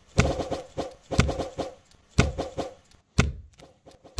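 Dubbed kung fu film fight sound effects: a run of about five sharp whacks and thuds, roughly one a second, each dying away within a fraction of a second.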